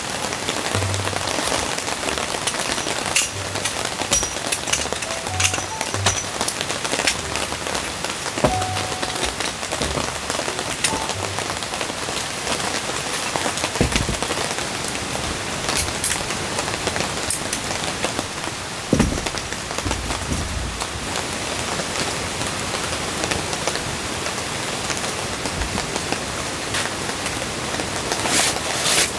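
Steady rain falling on the tent, with occasional knocks and clicks of metal camp stands being set up.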